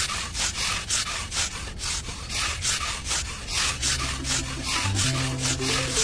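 Rhythmic scraping strokes, about three a second, like a tool or block being worked back and forth over a rough surface in miniature road work. About four seconds in, steady low tones join underneath.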